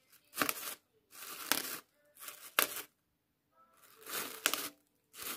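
Thin plastic bag stretched over a plant pot crinkling and tearing as a knife blade is pushed through it, in about five short bursts.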